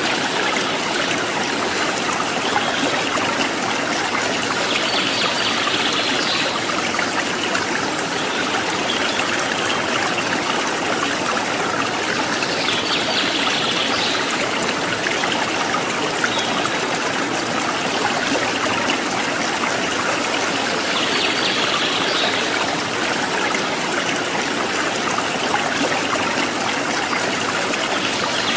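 Steady rush of a running stream, even and unbroken, with a slightly brighter swell returning about every eight seconds.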